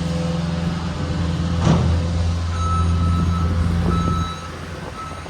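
Heavy truck engine running close by with a sharp clank about two seconds in. Its reversing alarm starts beeping a little later, and the engine rumble drops off near the end while the beeping carries on.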